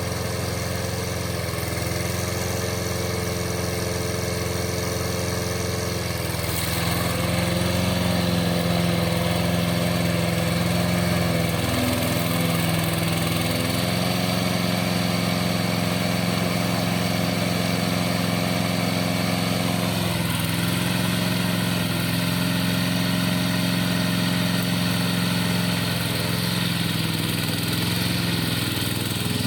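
Engine of a crawler remote-control lawn mower running steadily. It gets a little louder about six seconds in, and its pitch steps up and down a few times.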